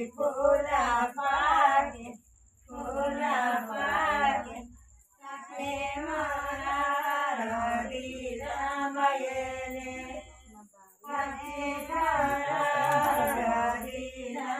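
Women singing a traditional wedding song together in held, melodic phrases broken by short pauses.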